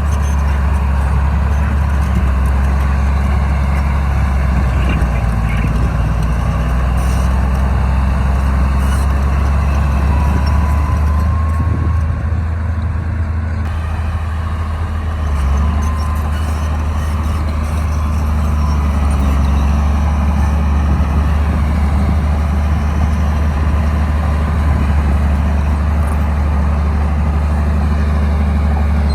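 Bulldozer's diesel engine running steadily under work, a deep low drone with a faint whine above it.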